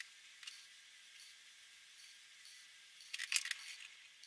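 Faint, thin clicks and clinks, a few scattered, with a quick rattling cluster of them about three seconds in.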